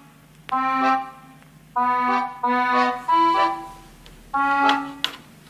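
Background music: short phrases of held, reedy chords, each dying away before the next begins, with a brief sharp click about five seconds in.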